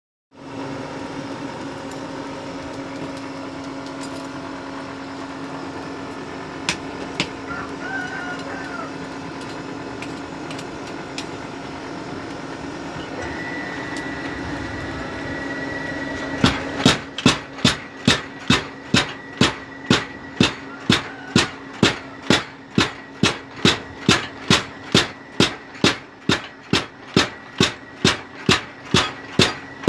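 Steady hum of a coal forge's air blower for about the first sixteen seconds. Then a homemade 25 kg electric power hammer starts striking hot steel, with sharp, even blows about two a second.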